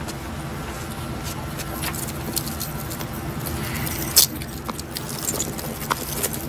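Metallic jingling and clicking of police handcuffs being put on a kneeling man's wrists, with one sharp click about four seconds in, over a steady low rumble.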